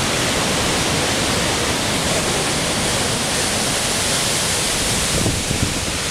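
River rapids: white water rushing over rocks in a loud, steady rush.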